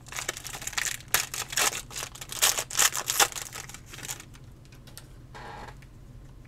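Foil wrapper of a trading-card pack being torn open and crinkled by hand, a quick run of crackles and rips for about four seconds. It then goes much quieter as the cards are slid out.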